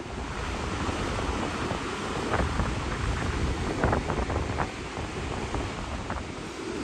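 Surf washing on a sandy beach, with wind rumbling on the microphone and a few brief crackles in the middle.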